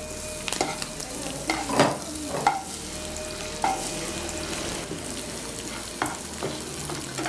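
An egg frying in hot oil with onion and curry leaves in a non-stick pan, sizzling steadily. A metal slotted spoon stirs and scrapes it, tapping against the pan about six times.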